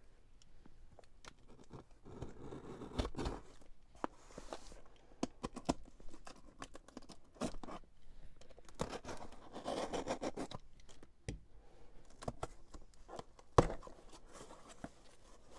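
Cardboard shipping box being opened by hand: packing tape tearing and cardboard scraping and rustling in irregular bursts, with scattered sharp knocks and one louder knock near the end.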